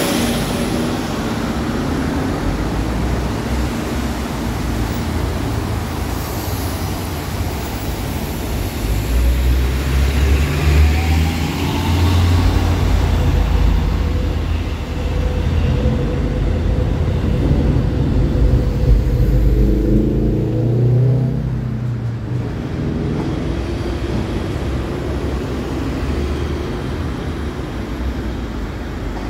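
Street traffic, with a 2006 MCI D4500CL coach's Caterpillar C13 diesel engine heavy and close from about ten to twenty-two seconds in. Its engine note rises as it accelerates away near the twenty-second mark, then fades back into the traffic.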